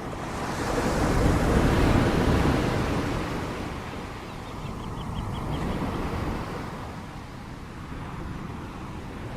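Ocean waves breaking on a shore: one big wave swells up and crashes loudest about a second and a half in, then washes away, with a smaller wave following about five seconds in.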